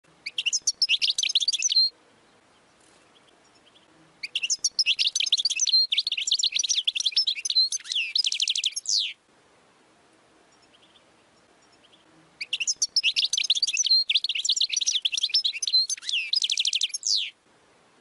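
European goldfinch singing in three bursts of rapid, high twittering. The first is short; the other two last about five seconds each and end in a fast, even trill.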